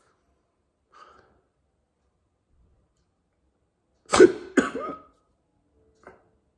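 A person with hiccups: a faint hiccup about a second in, two loud coughs in quick succession about four seconds in, and another short hiccup near the end.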